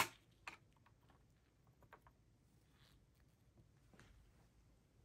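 Near silence, broken by a sharp click at the very start and a few faint clicks and taps from handling a desktop motherboard and its CPU socket hardware.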